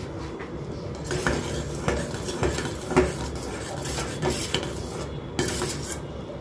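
Steel spoon stirring milk and sago pearls in a stainless steel pot, scraping the sides and bottom with irregular light clinks of metal on metal.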